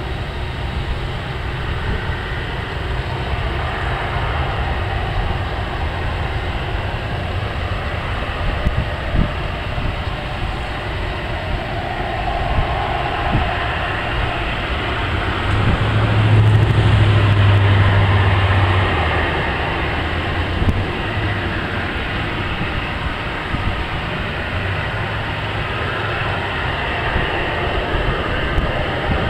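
Jet engines of an Airbus narrow-body airliner running at low thrust as it taxis onto the runway: a steady rumble and roar that swells louder for a few seconds about halfway through.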